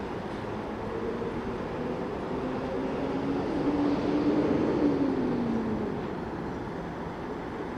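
Street traffic with a vehicle passing close by near the middle, its motor tone getting louder, then dropping in pitch and fading as it goes past.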